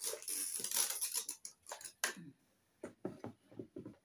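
Raw vegetables and leafy greens rustling as they are picked from a platter by hand, then short, irregular crunching of eating.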